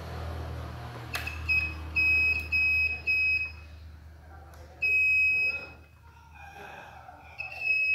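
Multimeter continuity buzzer beeping as test probes touch points on a satellite decoder's circuit board: a quick run of short beeps about a second in, then longer single beeps later. Each beep marks a short between the probed points, here the shorted plus and minus output of an IC.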